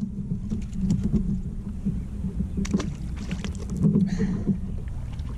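Steady low water rumble around a kayak, with clicks and knocks from handling a deeply hooked fish. A brief splash about four seconds in as the fish is let back into the water.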